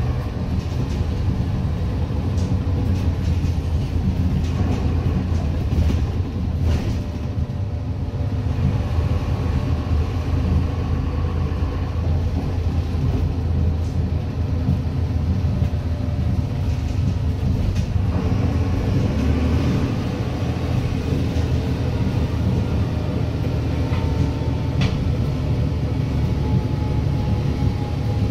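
Interior sound of a Mercedes-Benz Citaro O530 single-decker bus, whose drivetrain includes a 6-speed ZF Ecomat automatic gearbox: a steady low rumble of engine and road with a few brief rattles. Near the end, a faint whine slowly falls in pitch.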